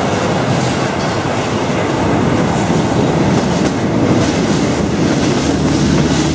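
Reunification Express train running on the rails: a steady loud rumble with faint, irregular clicks from the wheels and track.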